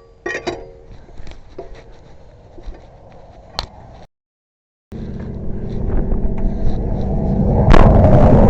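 A few light metallic clinks, then a loud vehicle rumble that starts suddenly and grows louder, with a sharp knock near its peak.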